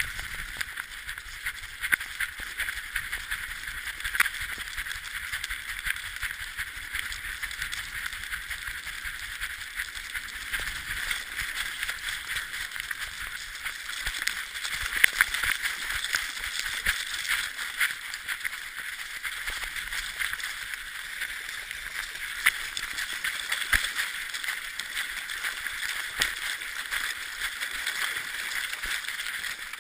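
Sled dog running over creek ice and overflow, its paws slapping and splashing through shallow water, heard from a camera strapped to the dog's harness: a steady hiss with many quick taps and clicks.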